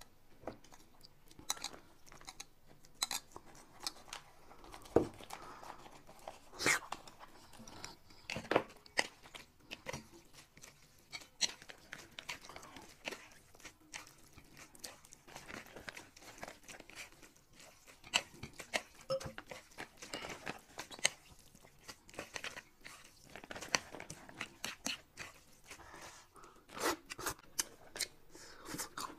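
Quiet eating sounds: chewing and crunching, with irregular sharp clicks of chopsticks and utensils against the dishes.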